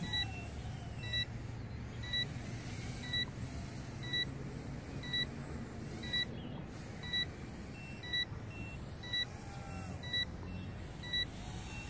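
Short electronic beeps about once a second over a steady low hum: a low-battery warning beeper going off as the quadcopter's battery runs down.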